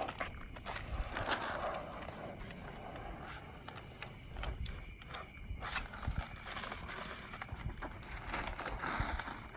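Transfer tape being peeled off a vinyl graphic on a truck's body panel, with irregular crackling and scattered clicks as the tape comes away.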